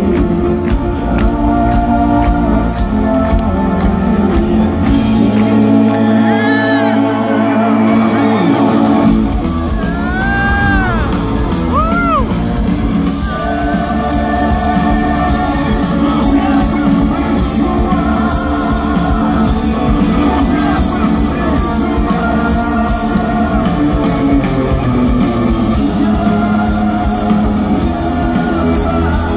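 Live rock band playing loudly through a concert PA, with singing over guitars, bass and drums; the deep bass drops out for a few seconds about five seconds in, then comes back. Excited whoops and cheers from the audience rise over the music around six and ten seconds in.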